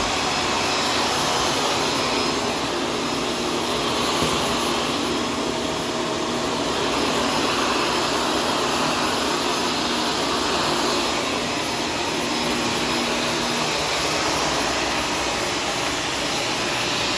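Shark upright vacuum cleaner running steadily while vacuuming a hard kitchen floor, its motor note swelling and easing slightly as it is pushed back and forth.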